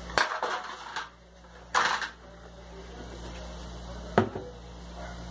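Metal baking pan handled and set down on a granite countertop: a few clattering knocks, a short scraping rush about two seconds in, and a single sharp knock about four seconds in, over a steady low hum.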